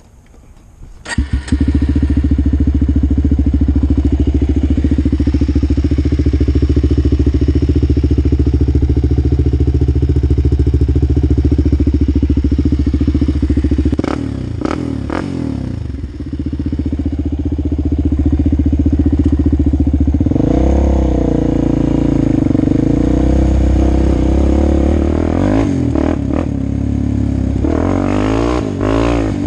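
Suzuki LT-Z400 quad's single-cylinder four-stroke engine through an HMF aftermarket exhaust, its carburettor just re-jetted with a 144 main jet. The engine comes in sharply about a second in and runs steadily at idle. Past the middle it dips briefly, then is revved up and down with the pitch rising and falling in the latter part.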